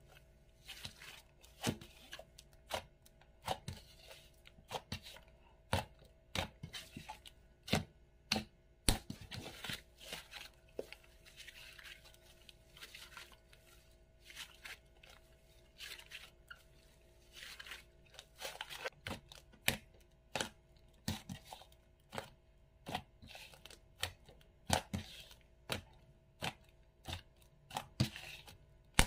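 Hands stretching, folding and kneading a thick slime: an irregular run of sharp sticky clicks and pops, with a few longer hissing stretches as the slime pulls apart.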